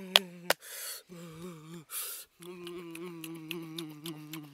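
A man humming a contented closed-mouth "mmm" in steady held notes, with breathy exhalations between them and a couple of sharp mouth clicks near the start, the sound of someone savouring food after eating.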